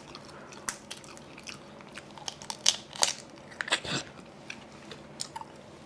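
Someone eating steamed seafood: scattered crunchy bites and wet chewing clicks, with a cluster of louder ones about three to four seconds in.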